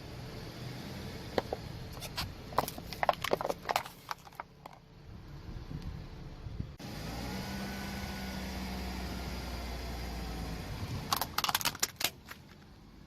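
Car engine running low and steady while its tyre rolls over and crushes brittle plastic toys. A run of sharp cracking and crunching comes in the first few seconds, and another short burst near the end.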